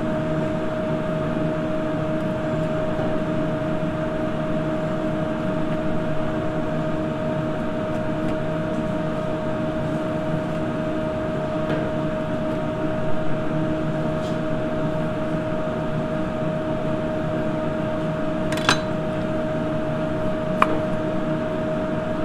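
Steady hum of kitchen machinery with a clear held tone. Near the end, a chef's knife clicks sharply on the cutting board a couple of times while slicing a lemon.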